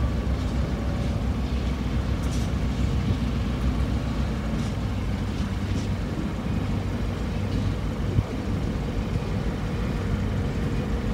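Diesel locomotive of a slow-moving freight train approaching, a steady low engine rumble.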